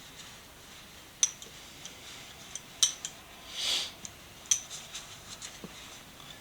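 Steel slip-joint pliers being handled, giving three sharp metallic clinks about a second and a half apart, with a brief rustle between the second and third.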